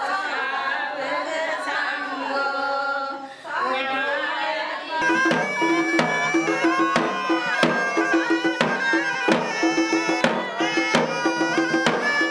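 Traditional music: singing with accompaniment for the first few seconds, then, from about five seconds in, drums beaten in a fast, steady rhythm with a melody over them.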